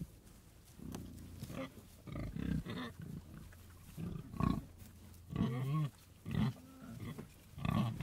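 Pigs grunting in a string of short, separate calls, about seven of them, with brief pauses between.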